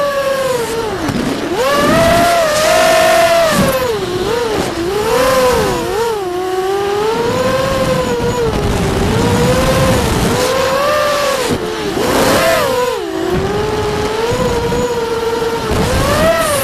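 Vortex FPV racing quadcopter's motors and propellers whining, heard from on board, the pitch constantly rising and falling with the throttle, with a deep drop about thirteen seconds in.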